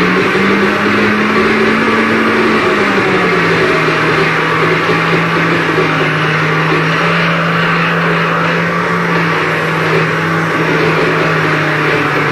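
Harsh noise performance: a loud, unbroken wall of amplified noise over a steady low hum. The hum steps up in pitch near the start and drops back about three seconds in.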